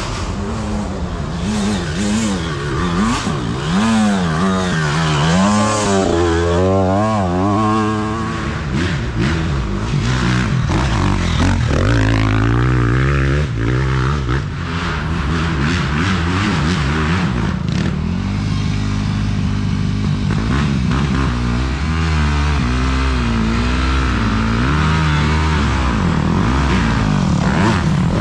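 Dirt bike engines revving up and down as riders work the throttle, the pitch rising and falling every second or so, with several bikes overlapping.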